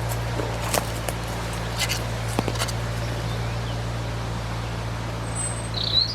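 A few sharp snaps and rustles of footsteps on woodland ground over a steady low hum, with a short bird call near the end that rises and then falls.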